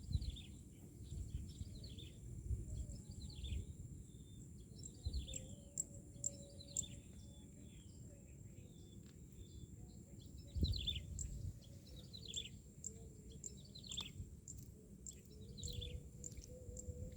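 Small birds chirping: many short, quick calls that fall in pitch, repeated throughout. Underneath are uneven bursts of low rumbling noise, and a faint steady high tone runs along.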